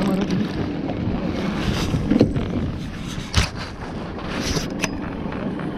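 Small fishing boat on the water: steady wind buffeting the microphone and water noise over a low hum, with a few sharp knocks.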